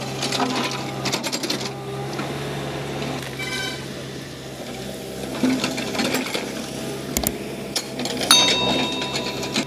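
JCB 3DX backhoe loader's diesel engine running steadily, with knocks and scrapes of the bucket working rubble and stones. A short electronic chime sounds near the end.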